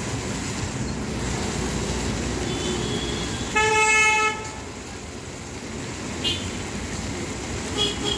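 A vehicle horn honks once, about three and a half seconds in, for under a second, over a steady hiss and rumble of street traffic and a wok of sauce heating on a gas burner.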